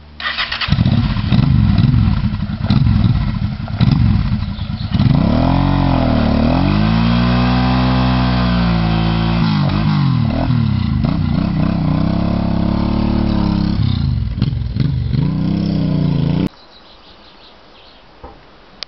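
Honda CBR1000F inline-four engine revved in sharp blips, then held at high revs with the pitch swinging up and down, as the rear tyre spins and smokes in a burnout. The engine sound cuts off suddenly about sixteen seconds in.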